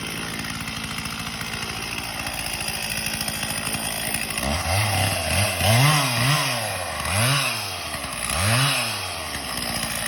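Stihl two-stroke chainsaw idling with a steady, even putter, then revved up and back down several times from about four and a half seconds in.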